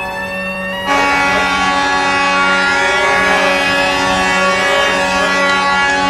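Ice hockey arena goal horn blaring a steady chord of several tones, with a rising siren wail layered over it. The horn comes in louder about a second in, and the siren swells up again midway.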